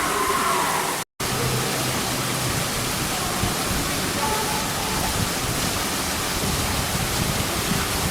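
Small artificial waterfall pouring into a koi pond: a steady rushing and splashing of water. The sound cuts out completely for an instant about a second in.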